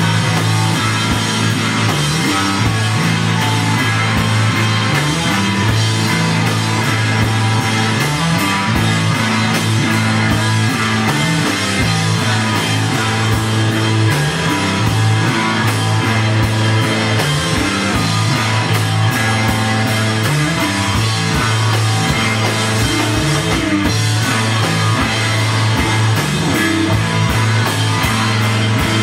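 Live rock band playing loud, distorted electric guitar, bass and drum kit, with the bass line shifting between notes.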